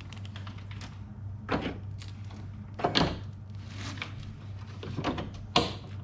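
A few separate clicks and clunks of metal parts being handled in a Jeep Grand Cherokee ZJ's front door window and regulator mechanism, over a steady low hum.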